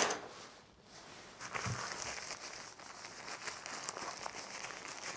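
Small fabric drawstring peg bag being handled and rummaged through, a light rustling and crinkling of the fabric with small scratchy ticks.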